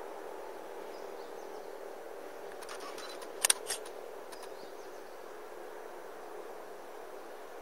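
Steady low outdoor background noise with a few faint, high bird chirps, broken by a quick cluster of sharp clicks about three and a half seconds in.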